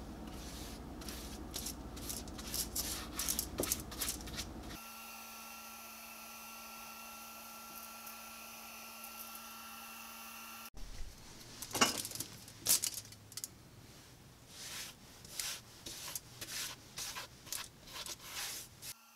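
Irregular light clicks, crackles and scraping from wax being worked onto a leather knife sheath lying on aluminium foil, with a stretch of steady hum in the middle and no crackling.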